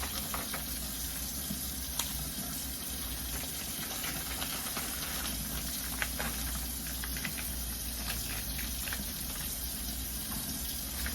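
Kitchen tap running steadily into a sink, with a few light clicks and knocks of handling.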